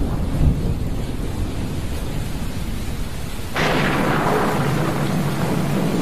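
Thunderstorm: low rolling thunder over steady rain hiss. About three and a half seconds in, a sudden, sharp crackling thunderclap breaks out and carries on as a long rumble.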